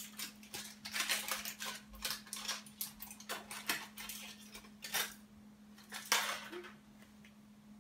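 Aluminium foil crinkling and crackling as a foil-wrapped brownie is unwrapped by hand: a string of irregular crackles that thins out in the last second or so. A faint steady low hum runs underneath.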